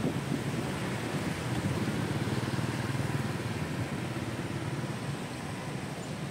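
Steady engine and road noise of a motorbike riding through city traffic.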